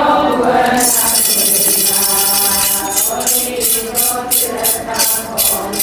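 A voice chanting with a shaken jingling rattle: a continuous jingle from about a second in turns into rhythmic shakes, about three a second, from about three seconds in.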